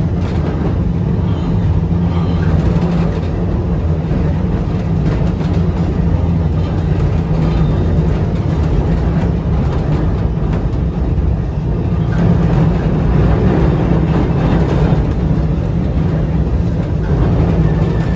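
Vintage A-type electric tram running along the track, heard inside the wooden saloon: a steady low rumble and hum from the wheels and running gear.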